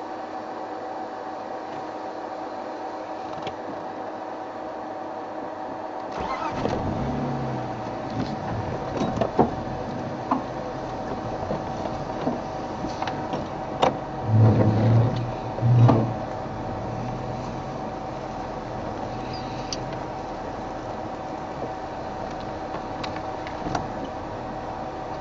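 Safari vehicle's engine starting about six seconds in and then running, with two short loud revs about halfway through as it moves off.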